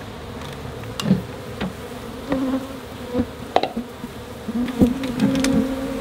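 African honey bees buzzing as they fly close by, single bees passing with a hum that swells and bends in pitch; the colony has been disturbed and bees are in the air. A few light clicks and knocks, about a second in and again around three and a half and five seconds.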